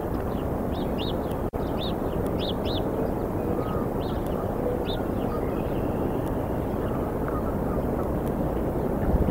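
Steady low outdoor rumble on the nest microphone, with a run of brief high chirps from small songbirds between about one and five seconds in. The sound drops out for an instant about a second and a half in.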